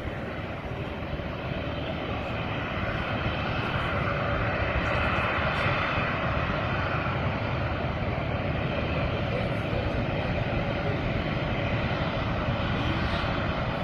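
Jet airliner's engines running as it taxis, a steady roar that grows a little louder over the first few seconds.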